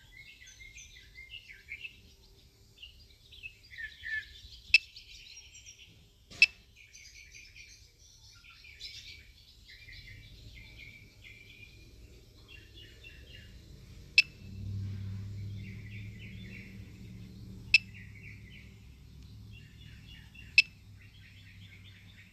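Songbirds chirping and calling, with several sharp clicks standing out above them. A low hum comes in about halfway through and is strongest a few seconds later.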